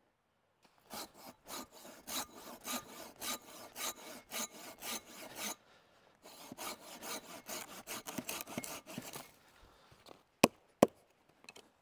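Silky Bigboy folding pull saw cutting through a dry dead pole, about three rasping strokes a second in two runs with a short pause between. Near the end come two sharp, loud clicks.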